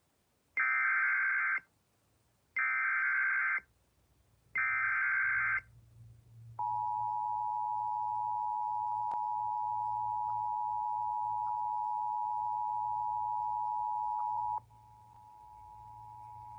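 Emergency Alert System header for a severe thunderstorm warning: three one-second bursts of SAME digital data screech, about a second apart. Then the steady two-tone EAS attention signal sounds for about eight seconds and drops in level near the end without stopping.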